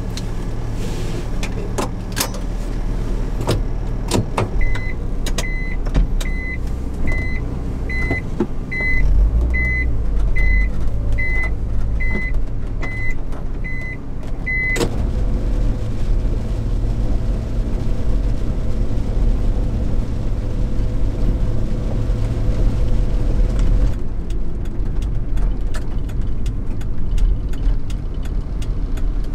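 Light truck's small engine starting and running, heard from inside the cab. About five seconds in, an in-cab warning beeper starts a steady single-pitched beep, about three beeps every two seconds, and stops after about ten seconds. The engine keeps running as the truck drives off.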